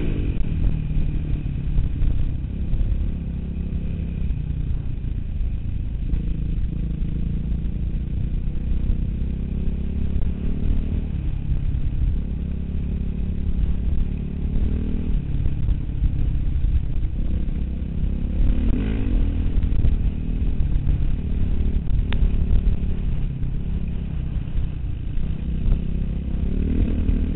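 Dirt bike engine running under way, heard from on the bike, its pitch rising several times as the rider accelerates and easing off between, over a steady low rumble.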